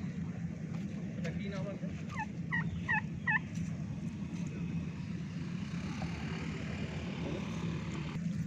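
Domestic turkey gobbling: a quick run of about four short calls two to three seconds in, over a steady low hum.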